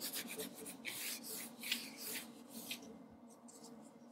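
A quick series of short, scratchy rubbing strokes, about a dozen, dying away about three seconds in.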